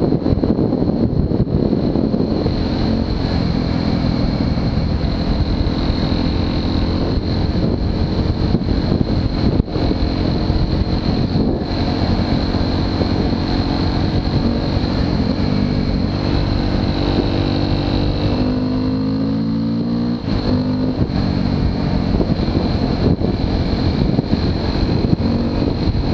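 Motorcycle engine running under way, with heavy wind buffeting on the microphone. The engine pitch shifts several times, then drops sharply about twenty seconds in as the throttle changes.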